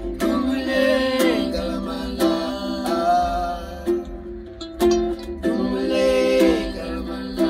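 Ukulele strumming together with a plucked seperewa, the Ghanaian harp-lute, in a wordless instrumental passage of a folk song, with a steady rhythm of plucked chords.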